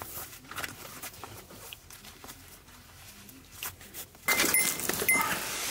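Hiking-boot laces being pulled and tied, with faint rustling and small ticks. About four seconds in, a much louder metallic jingling starts and keeps going.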